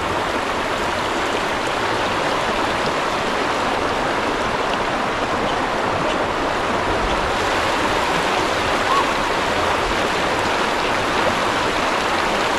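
A shallow creek rushing over rocks in a riffle: a steady, loud wash of moving water close to the microphone.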